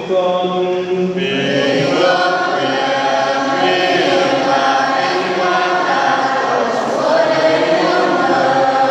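Catholic church choir singing a slow sacred chant, many voices together holding long notes.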